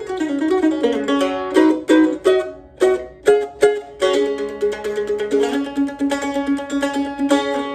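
Weber Road Dog F-style mandolin (red spruce top, maple back and sides) played solo with a flatpick: picked melody notes and chords, a few sharp accented strokes in the middle, then rapid picking on held notes from about four seconds in.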